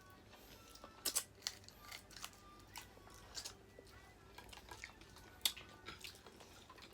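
People eating crab and other seafood: scattered sharp cracks and clicks of crab shell and utensils, with quiet chewing.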